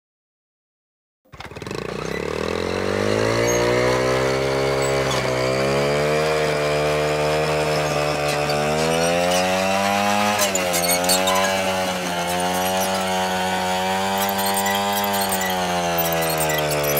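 Small motorbike petrol engine with its knobby tyre pressed against a playground merry-go-round to spin it, starting about a second in and running at high revs. Its pitch climbs over the first couple of seconds, then wavers up and down.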